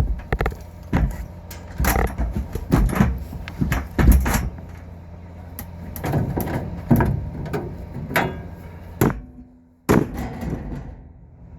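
Irregular knocks and clatter of hands and tools working on an air-conditioning unit, over a steady low hum.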